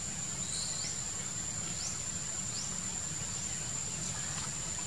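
Insects droning steadily on one high tone, with a few short rising chirps over a low steady rumble.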